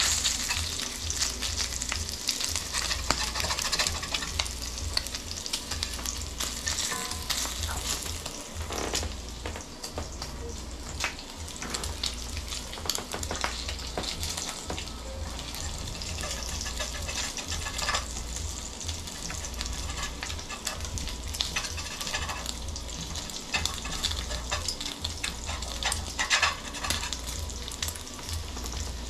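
Bacon frying in a cast iron skillet: a steady sizzle broken by frequent small pops and crackles of spitting fat.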